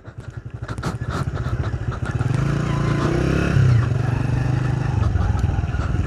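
A vehicle engine running over a rough, stony track, growing louder over the first two seconds and then holding steady, with rattling on top and a slight rise in pitch about three and a half seconds in.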